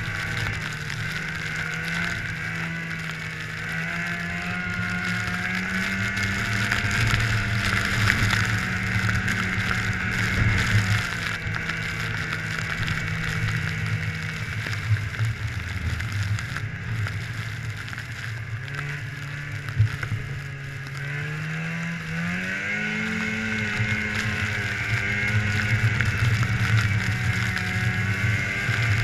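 Snowmobile engine running under way, its pitch rising and falling with the throttle and climbing sharply about three quarters of the way through, over a steady hiss.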